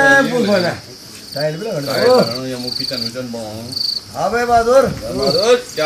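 Crickets chirping in short, regular pulses, about two a second, under a person's voice. The voice comes in bursts and is loudest at the start and around two and four and a half seconds in.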